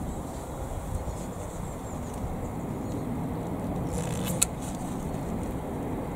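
Pruning secateurs snipping a rosemary stem once, a short sharp click a little past four seconds in, just after a faint rustle of the foliage. A steady low outdoor rumble runs underneath.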